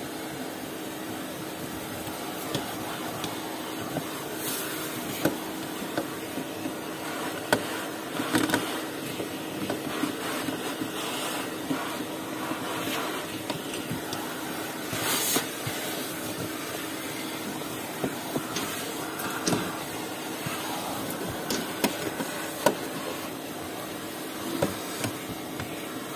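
Vacuum cleaner running steadily with a constant hum, with frequent short clicks and knocks as its hose nozzle works over a rubber car floor mat.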